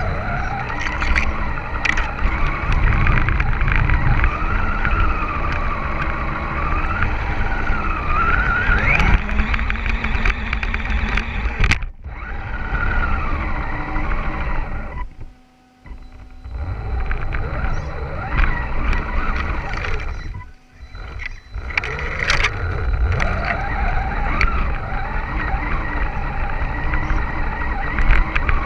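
Axial Wraith RC rock crawler driving over dirt and gravel, heard from a camera mounted on the truck. The electric motor and drivetrain whine rises and falls in pitch with the throttle, over a heavy rumble of tyres and chassis on the rough ground. About halfway through it stops briefly, and it stops again a few seconds later.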